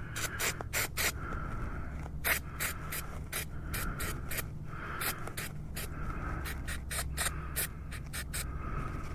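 Hand tools and metal parts being handled during a motorcycle oil change: a string of short, irregular scrapes and clicks over a low steady hum.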